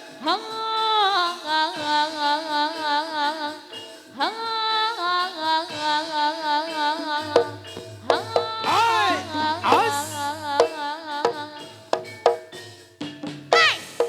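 Javanese jaranan dance music: a high melody line with wide vibrato and sliding pitch over light drum strokes. A low held tone sounds under it from about seven to ten seconds in.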